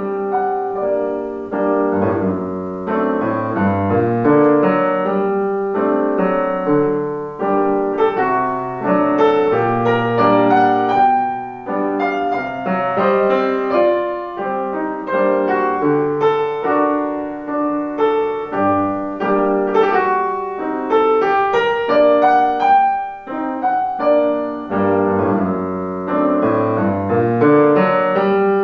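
Yamaha grand piano played solo: a classical piece in a continuous stream of notes across the middle and bass registers.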